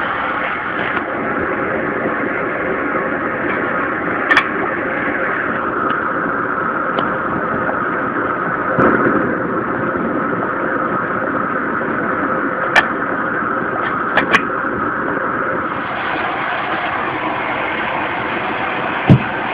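Homemade copper-coil jet stove burning with a steady rushing hiss, with a few sharp metal clinks from the kettle lid and handle. The hiss brightens near the end, as the kettle comes off the burner.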